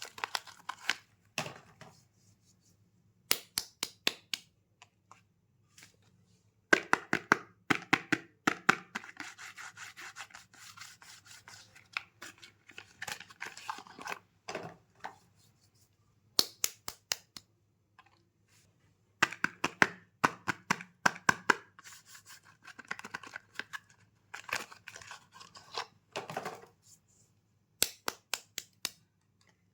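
Soap packaging being opened by hand: bursts of crinkling and tearing wrapper with sharp clicks, broken by short silent pauses.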